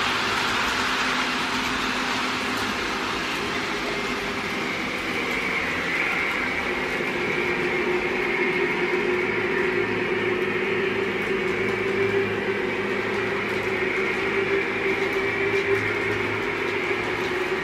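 Lionel GE Evolution Hybrid O-gauge model locomotive running with a train of tank cars: a steady hum of its onboard diesel engine sound mixed with wheels rolling on the track. A held tone grows clearer about six seconds in as the locomotive comes close.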